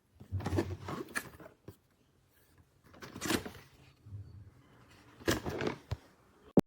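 Three short bursts of rustling handling noise, then a single sharp click near the end.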